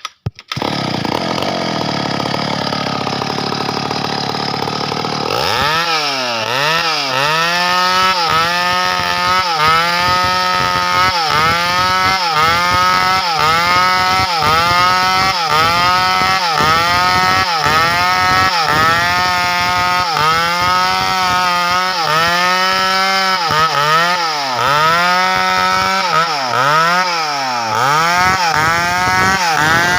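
Stihl chainsaw cutting timber into rafters. For about the first five seconds there is a steady rushing noise, then the saw's high engine note sags and recovers over and over, roughly once a second, as it works through the wood under load.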